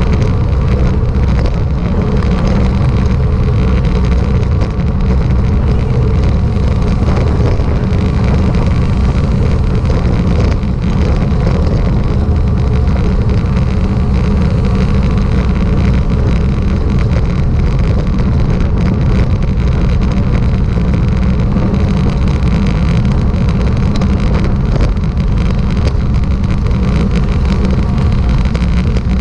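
Steady rush of wind and road rumble heard while travelling along the road, with wind buffeting the microphone; a dense low rumble with no clear changes.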